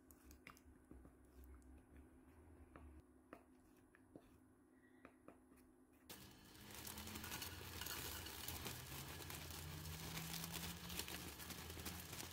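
A wooden spoon stirring thick gochujang sauce in a glass bowl, faint, with a few soft clicks against the glass. About six seconds in it gives way to a louder, steady dry rustling and crackling: dried shrimp being stirred and toasted with a wooden spatula in a preheated pan without oil.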